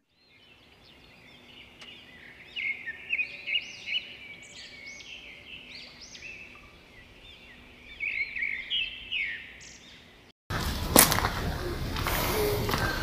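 Small birds chirping and twittering in quick, rising-and-falling notes, in two busy runs. About ten seconds in, it cuts suddenly to louder outdoor noise with sharp crunches of footsteps on gravel.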